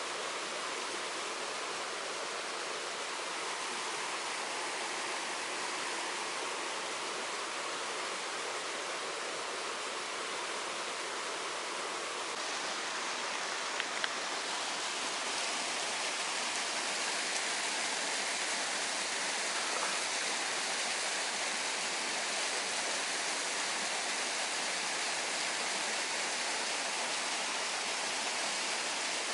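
Running water rushing steadily, growing a little brighter about twelve seconds in, with two faint clicks soon after.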